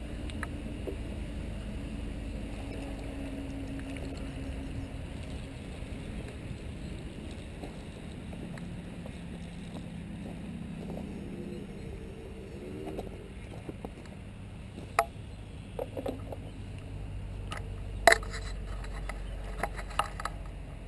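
A radio-controlled airboat's motor and propeller hum at low throttle, the pitch drifting up and down as the throttle changes, over a steady low rumble. Several sharp clicks and knocks come in the last few seconds.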